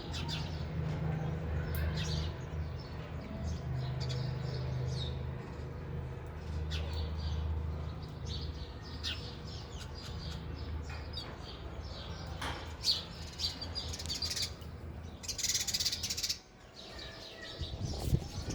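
Sparrows chirping in quick, short, high calls. A low steady hum runs underneath for the first half, and a brief rustling flutter comes near the end.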